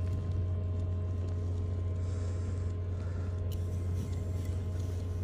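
Steady low drone of a large engine, unchanging throughout, with a few faint steady tones above it.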